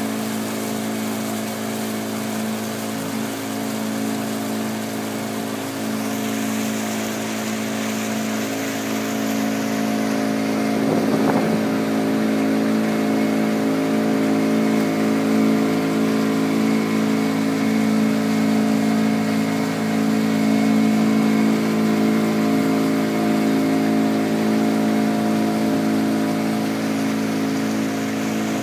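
Boat engine running steadily at a constant pitch, with an even hiss over it.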